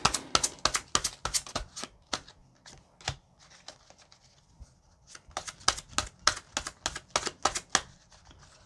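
A deck of tarot cards being shuffled and handled by hand: a quick run of sharp card snaps and taps in two bursts, with a quieter pause between them.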